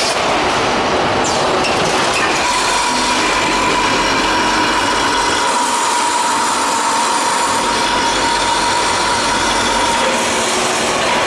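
Automatic carton packaging line running, with the strapping machine and powered roller conveyor making a steady mechanical rattle and rumble. A steady whine joins in about two seconds in and fades near the end.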